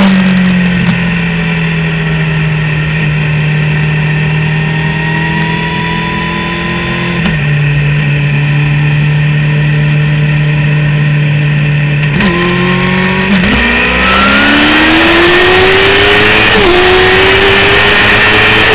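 Suzuki GSX-R750 sportbike's inline-four engine running under the rider at a steady pitch, then revving up as the bike accelerates about two-thirds of the way in. Wind rush over the microphone grows as it speeds up.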